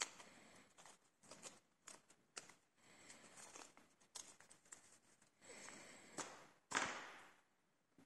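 Faint handling noise of a lock cylinder and tools being worked by hand: scattered short scrapes and light clicks, with a longer, louder scrape about seven seconds in.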